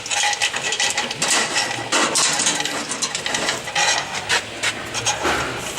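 Steel drive chain clinking and rattling in irregular clicks as it is fed link by link through a hole.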